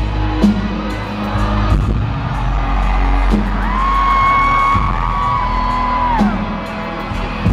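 Live band playing an instrumental passage of a slow pop song, with a heavy bass and drum hits. About three and a half seconds in, a high note is held for over two seconds, stepping down slightly before it ends.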